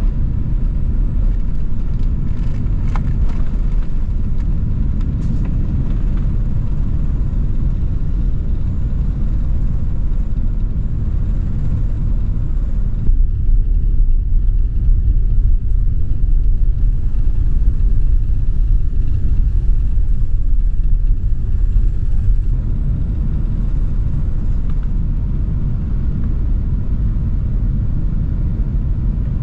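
Airbus A380 cabin noise during takeoff and initial climb: a loud, steady low rumble of the jet engines and rushing air, heard from inside the upper-deck cabin. The higher hiss drops away for several seconds in the middle.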